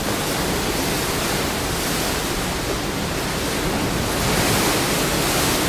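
Steady rushing noise of wind and water, even and unbroken.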